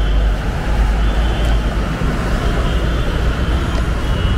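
Steady street background noise dominated by a constant low rumble of traffic.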